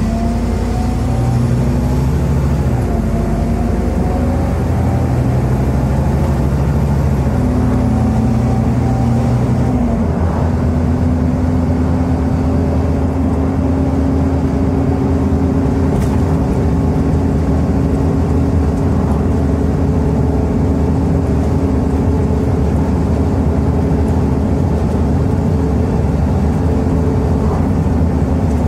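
Scania DC09 five-cylinder diesel bus engine heard from inside the passenger saloon, with the ZF automatic gearbox. For the first ten seconds the engine note rises and steps as the bus pulls away and the gearbox changes up. After that it holds a steady note with constant road and tyre noise as the bus cruises.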